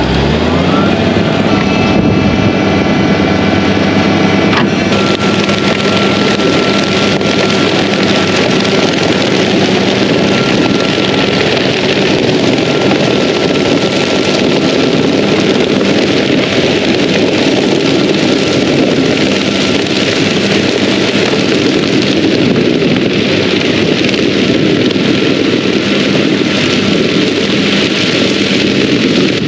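Tractor engine rising in pitch as it pulls away towing a rear-discharge muck spreader, then running steadily at road speed under a constant rush of tyre and wind noise.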